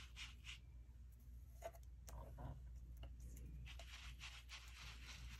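Faint, irregular scuffing of a small foam ink dauber rubbed in circles over the edge of a kraft cardstock card, inking it to give it an aged look.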